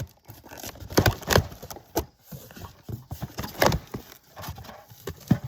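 Irregular knocks and thumps with rustling as a boxed woodstove is unpacked: the box and its contents being pulled open and handled.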